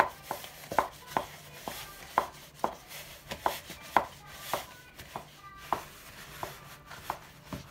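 Wooden spatula stirring flour into a soft yeast dough in a plastic bowl: quick, uneven knocks of the wood against the bowl, about two or three a second, with a light scraping between.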